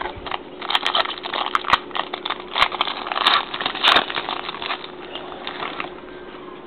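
Crinkling and crackling of a foil trading-card pack wrapper being torn open and handled, a dense run of sharp rustles that dies away near the end.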